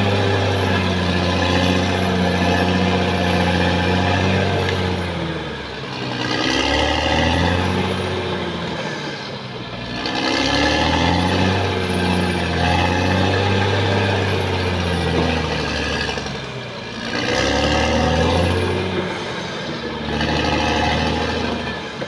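Caterpillar D6R XL bulldozer's diesel engine running hard as the blade pushes soil, its note dropping away and picking up again about four times as the load changes.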